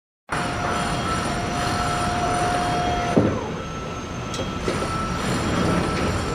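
Heavy machinery running with a steady rumble and a held high-pitched squeal, which cuts off with a sudden knock about three seconds in while a fainter whine carries on.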